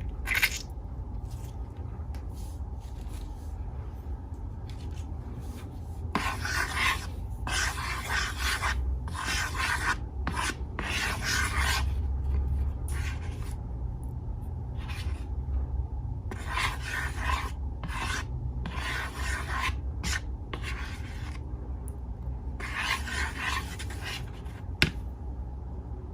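Hands working slime and balloons: a run of irregular rubbing, scraping strokes, some clustered close together, over a steady low hum, with one sharp click near the end.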